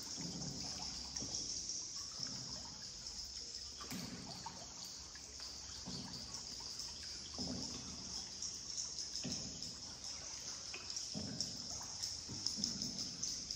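Paddle strokes in river water: soft splashes and trickling about every one and a half to two seconds, over a steady high hiss.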